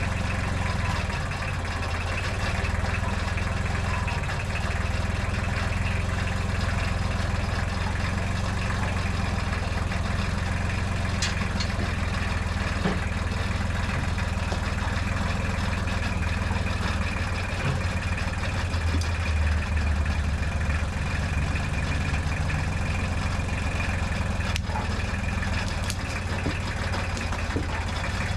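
Tractor engine running steadily at low revs, with a few faint knocks.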